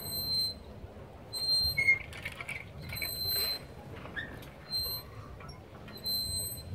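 Playground swing squeaking under an adult swinging high: a short, high-pitched squeal of metal on metal about every second and a half, once for each pass of the swing.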